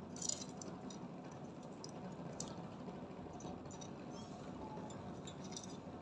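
Quiet room noise with a few faint, short clicks and ticks, the clearest about a quarter second in.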